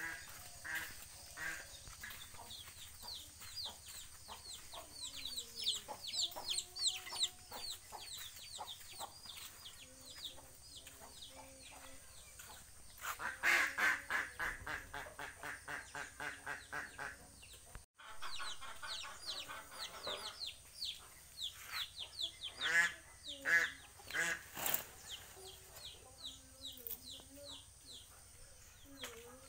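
Village chickens clucking, with long runs of quick, high, falling peeps and a louder spell of rapid clucking about halfway through.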